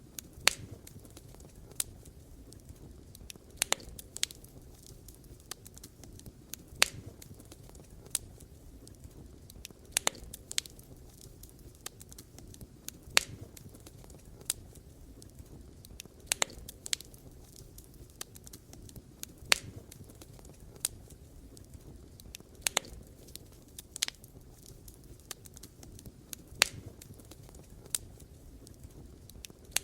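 Wood campfire crackling: sharp, irregular pops every second or so over a steady low rumble of the burning fire.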